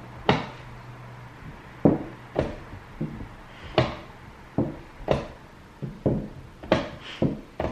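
Rapid bullet-chess play: four-times-weighted chess pieces set down hard on a vinyl board over a wooden table and hands slapping the chess clock. About a dozen sharp, irregular knocks come faster near the end as the clocks run low.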